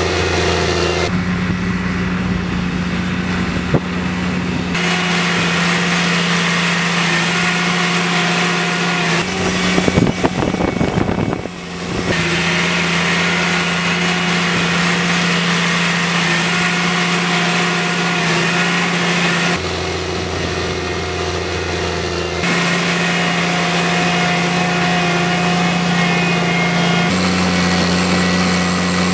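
Engine of a tracked drainage plow running steadily under load, a constant low hum whose pitch and level jump abruptly several times. About ten seconds in there is a short stretch of rattling clatter.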